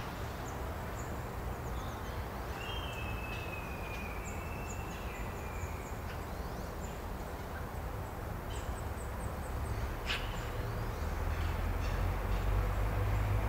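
Outdoor ambience: a steady low rumble, with small birds chirping faintly and high up throughout. A drawn-out, slightly falling whistle runs from about two to five seconds in, and there is one sharp click near the end.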